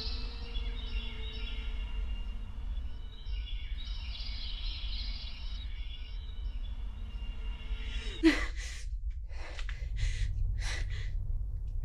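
A low steady rumble under a faint high drone of film-score tones. From about eight seconds in, a woman gasps sharply, then takes several quick, heavy breaths.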